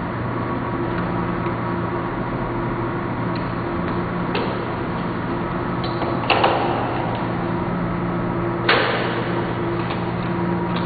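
A Godex desktop label printer being handled while its ribbon and labels are loaded: a few light clicks, then two louder knocks about six and nine seconds in, over a steady low hum.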